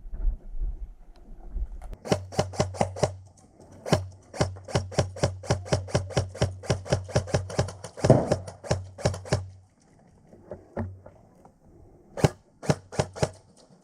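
Airsoft gun firing rapid strings of shots, about six or seven a second, over a low motor hum. The strings come in three parts: a short one about two seconds in, a long one of about five seconds with a louder thump in its middle, and a short one near the end.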